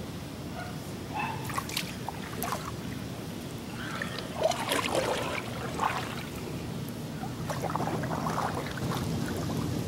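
Canoe paddle strokes: the paddle dipping and splashing in the water, with scattered light knocks of the paddle against the canoe, busiest around the middle.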